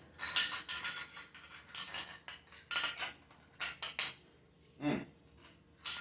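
Plastic packaging crinkling and rustling in a string of short, crisp bursts as a small wrapped rifle-scope part is unwrapped, with light clinks of hard parts.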